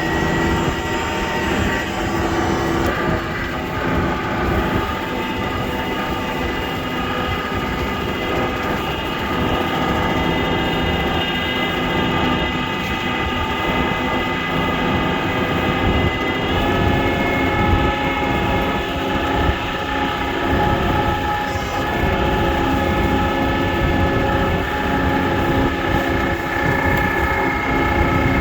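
A vehicle engine running steadily with a droning, multi-toned hum over a low rumble. Its tone shifts a few seconds in and again about halfway through.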